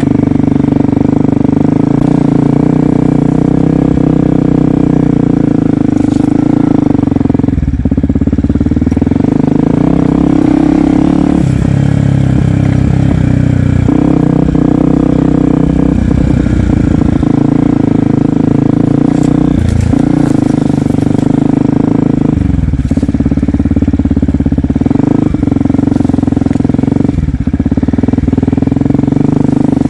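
Yamaha WR125X's single-cylinder four-stroke engine running as the motorcycle is ridden, the engine note dropping off and picking up again several times.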